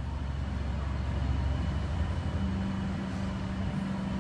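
Steady low mechanical rumble, with a steady hum joining a little over two seconds in.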